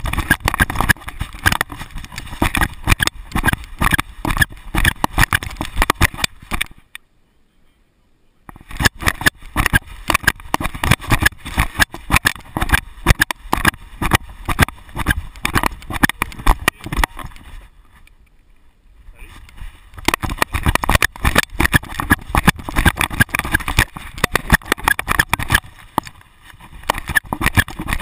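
GoPro HD HERO2 camera rattling and knocking in its back mount, which is held by a loose screw, as the dog carrying it runs: a dense stream of rapid clattering. It stops twice, for a second or so each time.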